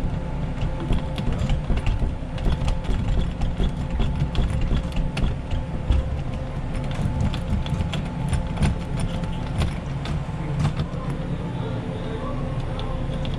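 Doorknob and lock being worked with tools: rapid, irregular metallic clicks and rattles that thin out near the end, over a steady low rumble and hum.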